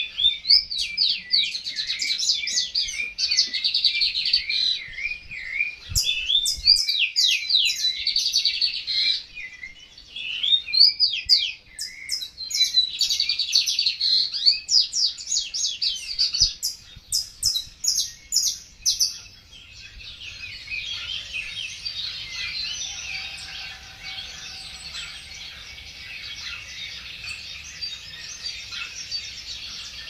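Songbirds singing in fast, repeated chirping trills, loud and in phrases with short breaks. After about 20 seconds this gives way to a quieter, continuous chatter of many small birds.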